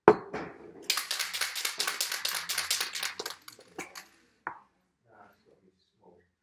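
A single sharp knock, then an aerosol spray paint can shaken hard, its mixing ball rattling in a fast run of clicks for about two seconds. A few lone rattles follow.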